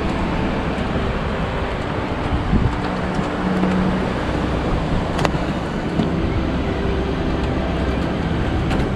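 Steady rush of a fast white-water river, an even roar, with one sharp click about five seconds in.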